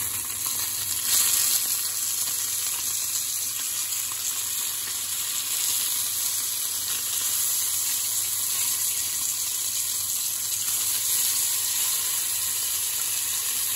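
Whiting fillets sizzling in hot oil in a cast iron skillet, a steady frying hiss. It swells briefly about a second in as the fillets are flipped with a silicone spatula.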